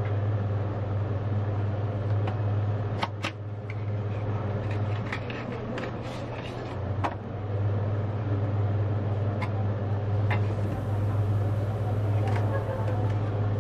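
A steady low hum, with a cardboard watch box being handled and opened over it: a few sharp taps and clicks and a light rustle of card and paper.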